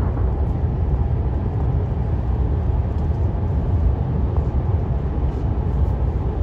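Steady low rumble of road and tyre noise inside a moving car's cabin.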